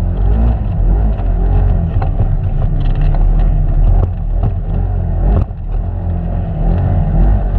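Side-by-side UTV engine running as the machine crawls over a rough trail, its pitch rising and falling with the throttle, with a few sharp knocks from the machine jolting over the ground.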